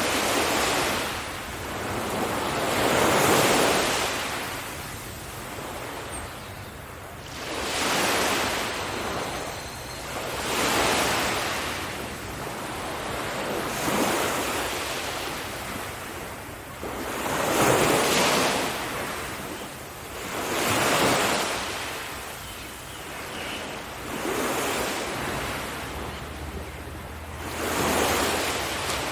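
Sea waves breaking and washing up on a beach, each wave swelling and falling away, about every three seconds.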